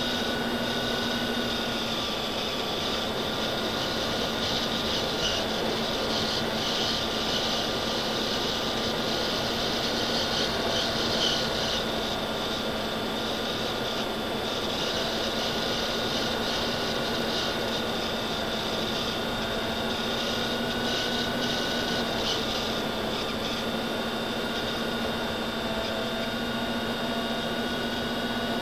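Small motor and propeller of an FPV model aircraft running steadily in flight, picked up by its onboard camera microphone: a constant whine of held tones over a steady rush of air.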